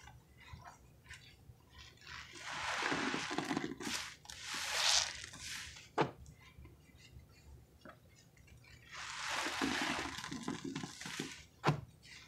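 Soapy sponges squeezed and kneaded by hand in thick, creamy pine-cleaner suds: two long stretches of wet squelching and crackling foam, each followed by a single sharp pop.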